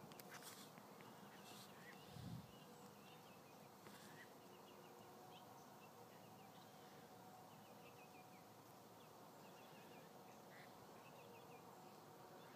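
Near silence: faint marsh ambience with small groups of quiet, high chirps repeating throughout, and a brief low bump about two seconds in.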